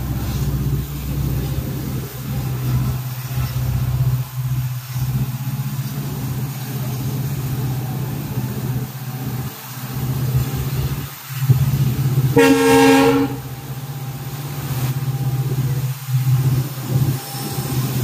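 Steady low hum of a moving express train hauled by a WDP4D diesel locomotive. About twelve seconds in, a train horn sounds once, briefly.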